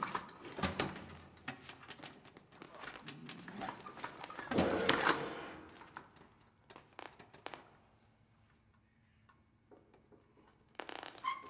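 Scattered knocks and thuds of a stool and microphone stand being bumped and knocked over, with the loudest clatter about five seconds in.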